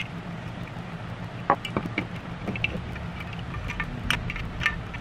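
Light clicks and taps of an industrial foot switch's housing and small parts being handled, the sharpest about one and a half seconds in and a cluster near the four-second mark, over a steady low hum.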